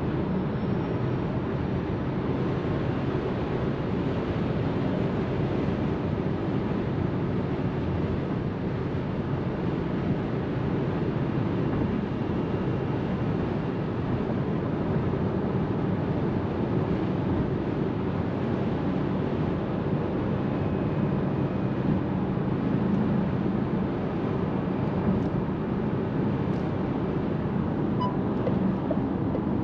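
Steady tyre and wind noise of a Seres 3 electric SUV driving at speed, heard inside the cabin, with no engine sound.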